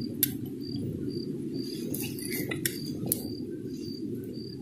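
A cricket chirping steadily, about two short chirps a second, over a low steady rumble of wind on the microphone, with a few faint clicks.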